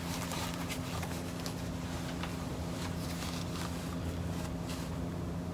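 Faint rustling and soft scattered taps of a neoprene wetsuit being handled and turned over, over a steady low electrical hum.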